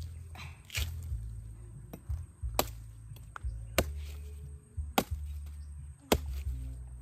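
A blade chopping into a young coconut (buko), about five sharp chops roughly a second apart, with background music underneath.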